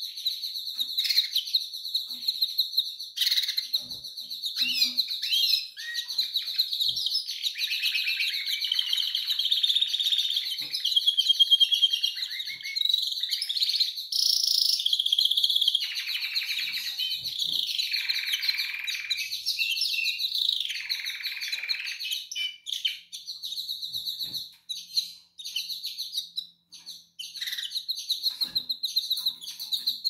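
Canaries chirping and trilling: a fast, high twittering throughout, with longer warbled song phrases through the middle.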